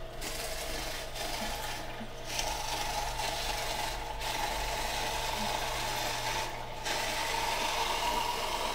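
Green Star twin-gear juicer crushing carrots as a wooden plunger forces them down the chute: a steady motor hum under a rasping grind that eases off briefly a few times.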